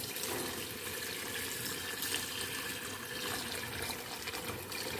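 Strained chicken stock pouring in a steady stream from a container into a pot of sautéed vegetables, filling the pot.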